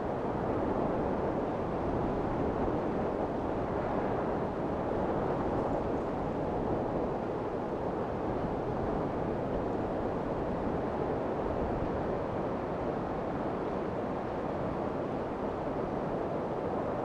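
Strong wind blowing, a steady rushing noise with no single gust or knock standing out.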